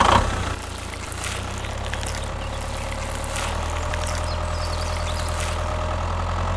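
Tractor engine idling steadily, a low even rumble, with a brief louder burst right at the start.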